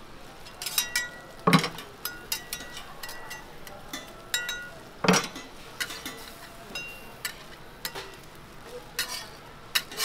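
Metal spatula clinking and scraping on a flat steel griddle, some strikes ringing briefly, over the faint sizzle of egg patties and ham frying. Two louder knocks come about a second and a half in and about five seconds in.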